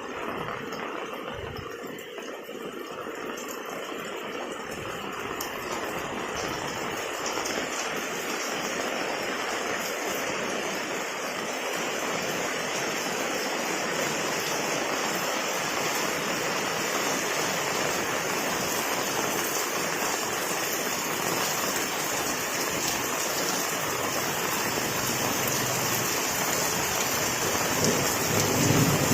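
Heavy rain falling steadily, growing gradually louder.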